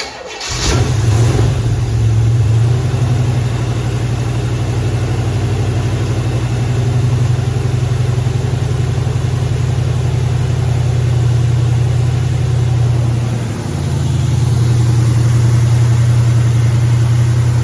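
1972 Chevrolet Nova's V8 engine catching right at the start and then running steadily, with a deep exhaust note, on a freshly replaced exhaust manifold gasket. The note dips briefly about thirteen seconds in, then picks back up.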